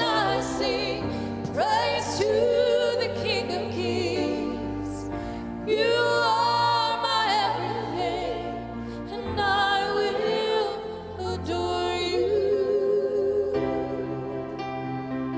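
Slow church music: a solo melody line with strong vibrato, in phrases of a few seconds, over sustained keyboard chords and bass notes.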